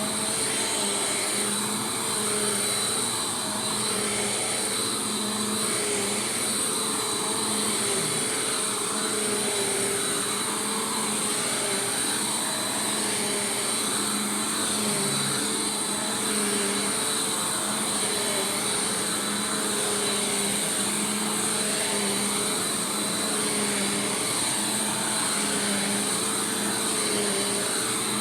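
Bissell PowerForce Compact Turbo upright vacuum cleaner running steadily, its motor giving a constant high whine with a slight regular waver in pitch as it is pushed back and forth.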